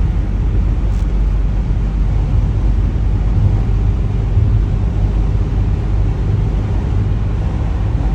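Steady road and engine noise of a car driving on the highway, heard from inside the cabin: a constant low rumble with tyre hiss.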